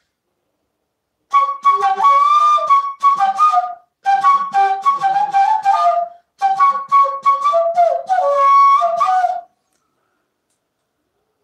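Side-blown bansuri-style flute playing a Tamil film-song melody in three short phrases with brief breaks between them, starting about a second in and stopping about two seconds before the end.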